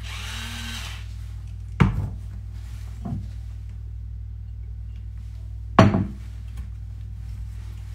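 Electric pepper mill grinding briefly, stopping about a second in. Then sharp knocks of things being set down on the counter: a loud one about two seconds in, a lighter one at three seconds, and another loud one near six seconds. A low steady hum runs underneath.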